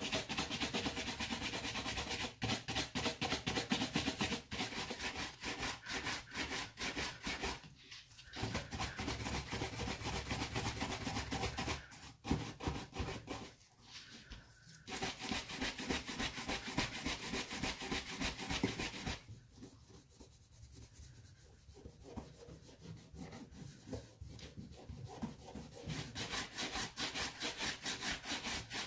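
Bristle shoe brushes buffing a leather dress shoe in fast back-and-forth strokes, stopping briefly a few times. Past the middle the rubbing turns softer and quieter for several seconds, then the quick brushing picks up again near the end.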